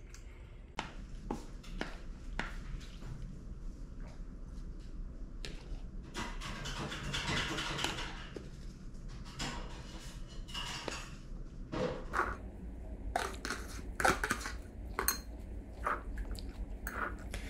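Spoon and fork clicking and scraping against a ceramic bowl and plastic takeout tubs. A few seconds past the middle comes a longer stretch of scraping as food is spooned out of a plastic tub into the bowl.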